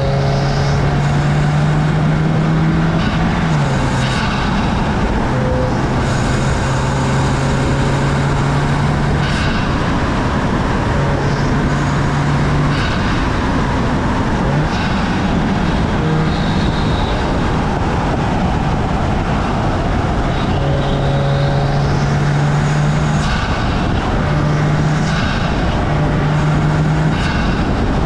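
Audi S3 (8Y) with its turbocharged 2.0-litre four-cylinder cruising along a road, heard from a low outside mount: wind and tyre noise with a steady low engine drone that comes and goes.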